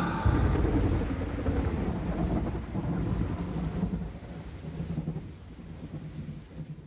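Thunder with rain: a sudden clap just after the start, then a long rolling rumble over a hiss of rain that slowly fades away, with a faint low hum beneath it.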